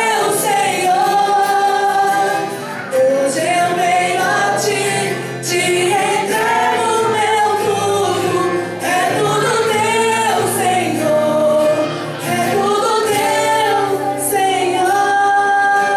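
A gospel-style Christian song sung over instrumental accompaniment, with held notes and phrases that break every second or two.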